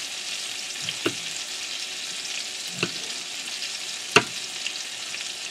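Pigeon breasts frying in butter in a pan, a steady high sizzle, with three sharp knife taps on a bamboo cutting board about one, three and four seconds in, the last the loudest.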